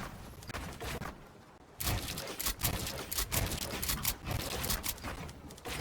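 Rapid, irregular clicks and taps of computer hardware being handled during a PC build, with a short lull about a second in.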